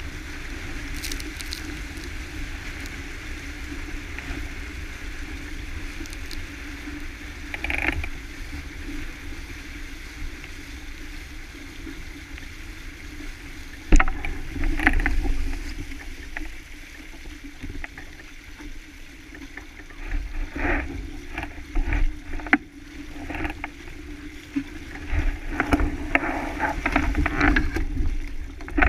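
Water rushing and splashing along a small sailboat's hull under sail, with wind rumbling on the microphone. A sharp knock comes about halfway through, and the water slaps more unevenly and loudly near the end.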